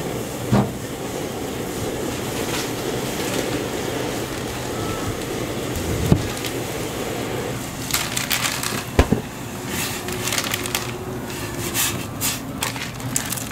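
Ramyun broth boiling in a small aluminium pot over a gas burner, a steady hiss with a few sharp knocks. From about eight seconds in, blocks of dried instant noodles are snapped and crumbled by hand into the pot, a run of sharp crackles.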